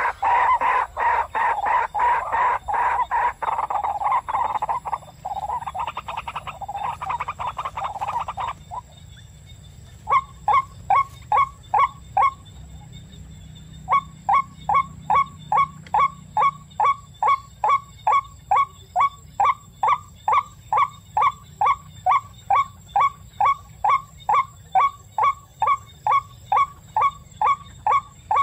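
White-breasted waterhen calling. A loud, rapid run of calls lasts about eight seconds, then after a short pause gives way to single short notes repeated steadily, about two a second.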